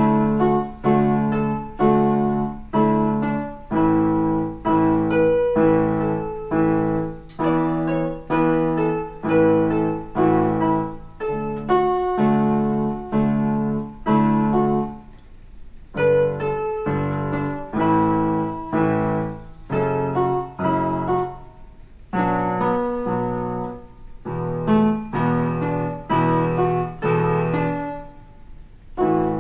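Portable electronic keyboard on a piano voice playing a slow melody in block chords, the chords struck about twice a second. There are short breaks between phrases about halfway through and near the end.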